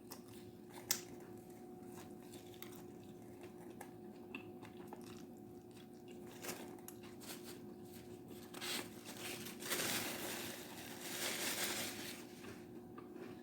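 A person chewing food close to the microphone, faint clicks and mouth sounds over a steady low hum, with a few louder noisy bursts in the second half.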